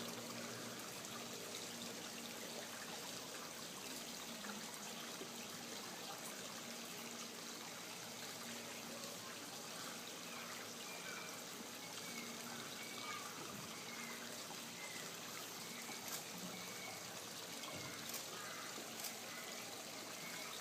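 Steady trickling, running water, with faint short high chirps repeating through the second half.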